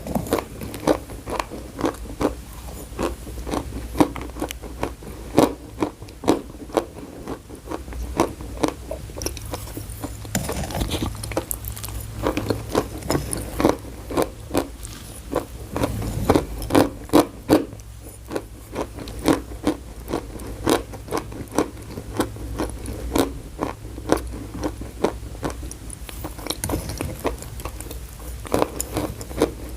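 Close-miked chewing of chalk: a long run of sharp, crisp crunches, about two or three a second, over a low steady hum.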